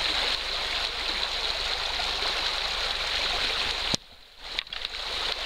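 Stream water rushing steadily. About four seconds in, a sharp click, then the sound almost cuts out for about half a second before the rushing comes back.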